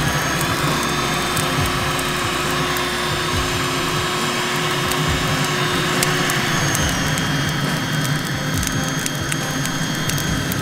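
Looftlighter X electric charcoal starter blowing superheated air into lump charcoal: a steady rushing blower noise with a high motor whine, and the charcoal crackling and popping with many small snaps as it catches.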